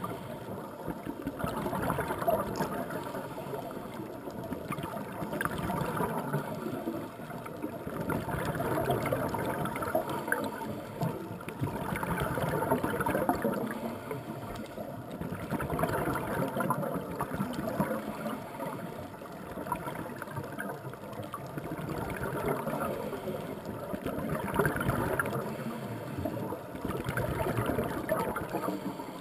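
Underwater sound of scuba breathing through a regulator: the bubbles of each exhalation gurgle and crackle, swelling every few seconds with the breaths.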